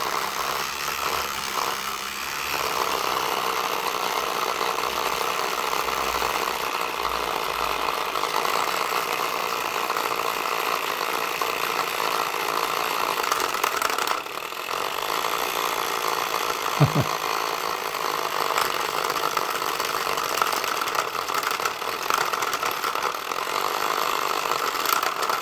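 Small battery-powered electric motor in a 3D-printed flapper paddle boat running steadily, driving the plastic flapper mechanism with a continuous mechanical whirr that is a bit noisy. A brief dip about halfway through and a single short thump a little later.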